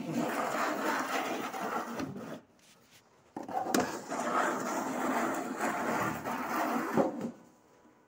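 Plastic spin mop bucket and its spinner basket being handled, rattling and rubbing in two spells with a short pause between.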